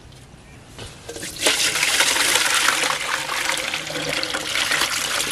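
Water poured from a tipped clay pot splashing and gushing into a metal basin of water, starting about a second and a half in.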